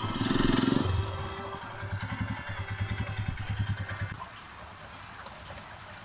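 Royal Enfield Himalayan's single-cylinder engine running with a steady low thudding beat, loudest for about the first second and fainter toward the end.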